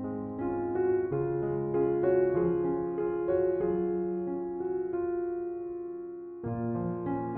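Soft background piano music: slow melodic notes over sustained chords, with a new chord struck about six and a half seconds in.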